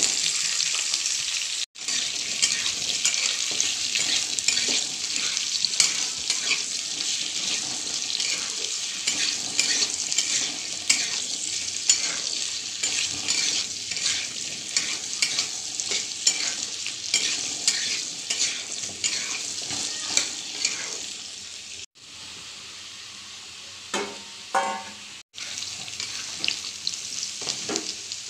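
Food frying in hot oil in a pan, a steady sizzle with frequent clicks and scrapes of a spatula stirring against the pan. Near the end the sizzle drops away for a few seconds, and a couple of short knocks sound before it returns.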